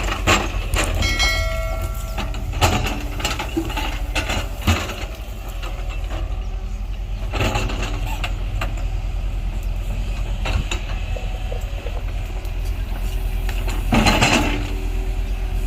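Diesel engine of an earthmoving machine running steadily, with metal clanks and knocks every few seconds and a brief high squeal about a second in.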